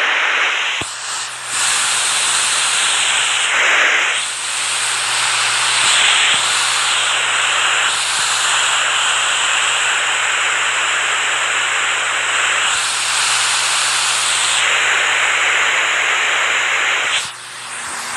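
Rushing water: a loud, steady hiss of spray and splashing, like a waterfall or fast stream. It shifts in tone a few times and drops away shortly before the end.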